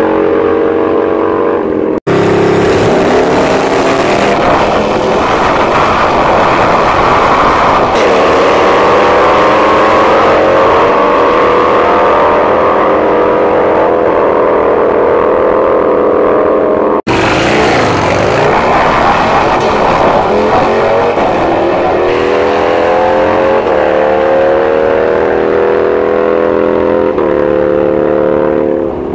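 Drag-racing engines running loud, their pitch rising slowly over several seconds at a time. The sound breaks off abruptly about two seconds in and again about seventeen seconds in.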